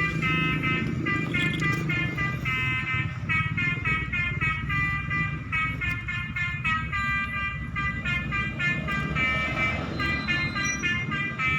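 Basuri telolet multi-tone horn playing a fast melody of short, quickly changing notes, over a low steady rumble.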